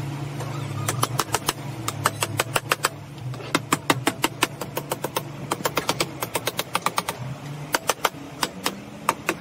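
Quick, sharp taps of a hand tool on the plastic lid of a 12 V lead-acid battery as the lid is seated onto the case, several taps a second in irregular runs. A low, steady hum runs underneath.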